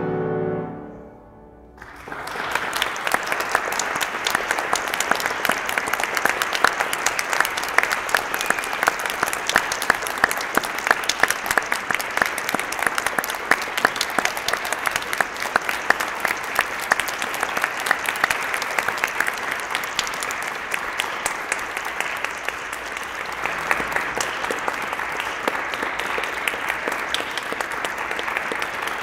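The last notes of a piano-accompanied song die away, and about two seconds in an audience breaks into steady applause.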